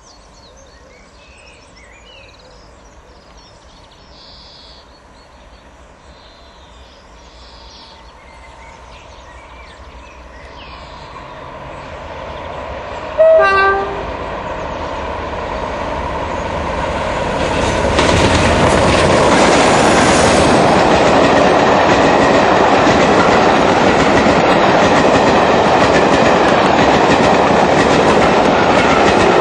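Birds chirp over quiet lineside air as a Class 47 diesel locomotive approaches, its engine growing steadily louder. The locomotive gives one short horn blast about halfway through. It then passes close by, and the coaches clatter over the rail joints at a steady, loud level.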